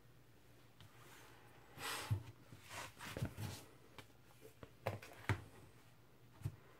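A shrink-wrapped vinyl LP jacket handled and turned over on a wooden table: a short sliding rustle about two seconds in, then several light knocks and soft thumps as the sleeve is shifted and set down.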